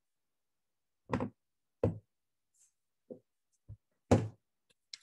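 A series of about six short, dull knocks at uneven spacing, the loudest about four seconds in.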